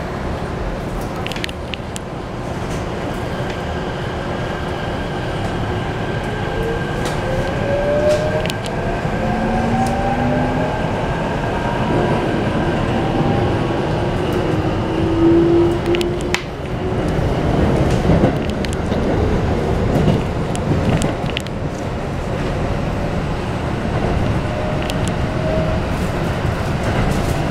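Interior running sound of a Keikyu New 1000 series train with a Mitsubishi full-SiC VVVF inverter. The inverter and traction-motor whine rises in pitch as the train gathers speed. It sits over steady rumble from the car, with occasional sharp clacks from the wheels and track.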